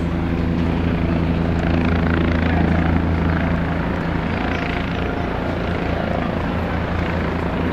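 A helicopter's rotor beating steadily over its engine noise, with a continuous rushing wash.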